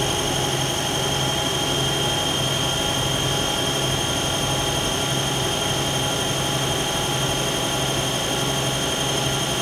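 Mazak CNC lathe spindle running steadily at speed with a workpiece in the chuck, a steady hum with a high whine over it.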